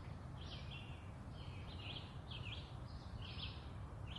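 A songbird singing: a string of short, high chirping notes, about two a second, over a steady low rumble on the microphone.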